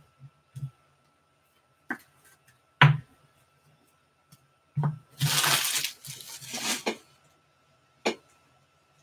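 Trading-card packs and cards being handled on a table: a few sharp knocks, the loudest about three seconds in, and a crinkly rustle of pack wrappers lasting about two seconds past the middle.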